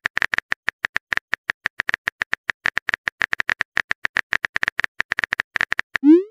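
Rapid phone-keyboard key-tap clicks, about ten a second, the typing sound of a chat app as a message is typed out. A short rising swoosh starts right at the end as the message is sent.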